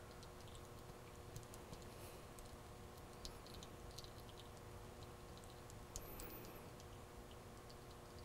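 Near silence: faint steady room hum with scattered light ticks and clicks.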